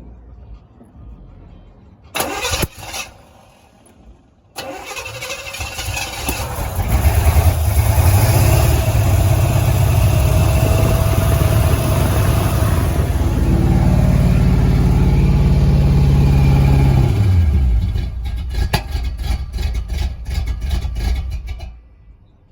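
A 1986 Oldsmobile Cutlass Supreme engine is cranked by the starter after a short burst of noise, catches and runs steadily with the throttle held open. Near the end its speed falls and it runs unevenly for a few seconds before stopping. It is an engine that will not keep idling on its own, cutting out within seconds once the throttle is let go.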